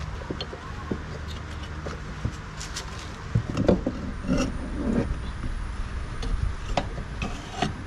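Scattered clicks and knocks of tools on metal as the four screws holding a Toshiba washing machine's motor are taken out, over a steady low hum.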